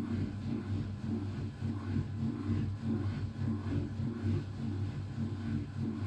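Vintage Candy 133 front-loading washing machine tumbling wet laundry during its fabric-softener rinse: a steady low motor hum that swells and eases in a regular rhythm as the drum turns.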